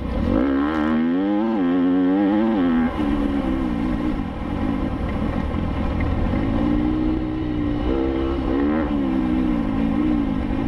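Enduro motorcycle engine pulling hard through a special-test lap: the revs climb and waver, drop sharply about three seconds in, hold fairly steady, then rise and fall again near the end as the rider works the throttle and gears.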